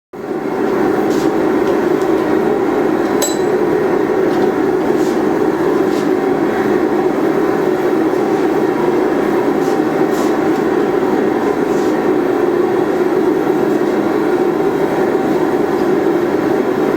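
A forge running with a steady roar, with a few faint light clicks or taps scattered through it.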